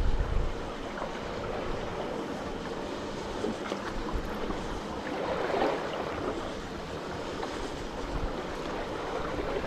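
Sea waves washing, with wind on the microphone: a steady rushing wash that swells briefly about halfway through.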